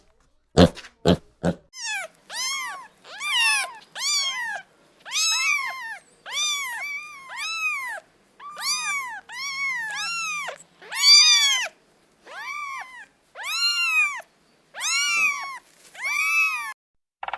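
A cat meowing over and over, about fifteen high-pitched meows roughly one a second, each rising and falling in pitch. A few short, sharp grunts come just before the meows begin.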